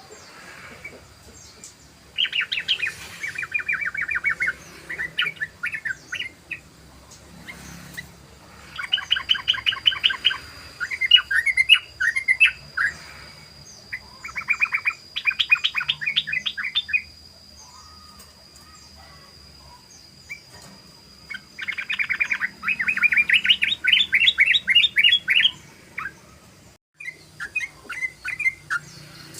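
Yellow-vented bulbul (trucukan) singing in fast, rattling runs of rapidly repeated notes: the rolling 'ropel' song. There are four long runs separated by short pauses with a few scattered notes.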